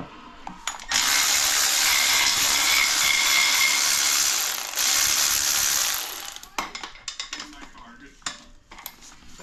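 A ratchet clicking rapidly in a loud, continuous run of about five seconds with a brief break partway through, followed by a few scattered clicks and knocks of tools on metal.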